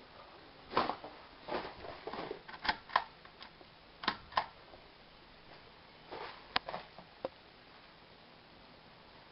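Handling noise from a handheld camera: scattered soft rustles and light clicks, a few sharper ticks among them, dying away over the last couple of seconds.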